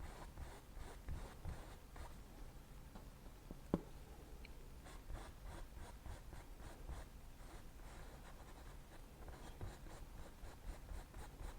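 Faint scratching of a brush working oil paint onto canvas in short repeated strokes, with one sharp tap about four seconds in.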